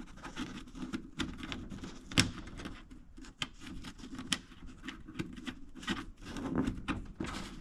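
Scattered light clicks, taps and rustling from hands handling small screws, nuts and tools, with one sharper knock a little past two seconds in.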